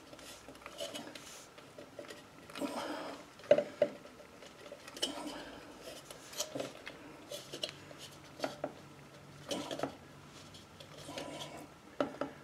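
Scattered clicks, taps and rubbing as a wiring harness plug is worked onto the back of a halogen headlight bulb, a stiff fit that takes repeated pushing.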